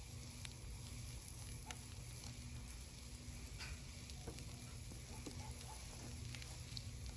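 Eucalyptus wood fire in a burn barrel crackling with scattered sharp pops, and shish kebabs sizzling on the grate over it.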